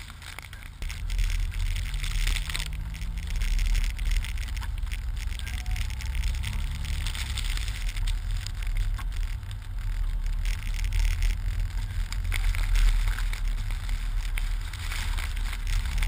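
Wind buffeting the microphone of a camera mounted on the outside of a moving Jeep Wrangler, a heavy fluctuating rumble over a steady hiss of tyres and spraying snow as it drives through a blizzard; the rumble steps up about a second in.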